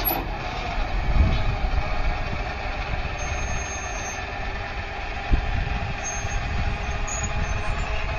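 Railroad crossing gate mechanism raising its gate arm: the motor starts with a sudden onset and whines steadily, slowly fading as the arm swings up to vertical.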